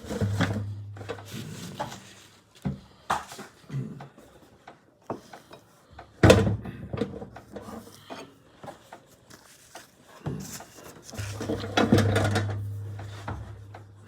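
Takeout food boxes and containers being handled: rubbing, sliding and scattered knocks, the sharpest about six seconds in. A low steady hum comes in twice, at the start and again near the end.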